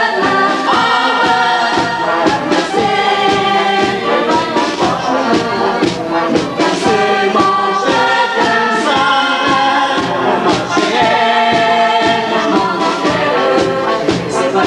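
Portuguese marcha popular song: a chorus of voices singing in unison over a band accompaniment with a steady march beat.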